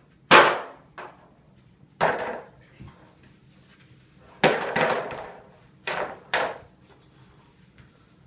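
A series of hard, loud impacts from a wrestling fight: about six sharp hits spread over some six seconds, each dying away quickly, with the closest pair about half a second apart midway through.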